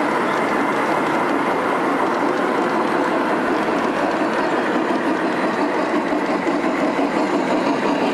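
G scale model freight train's cars rolling past on the track, a steady rumbling of wheels on rail.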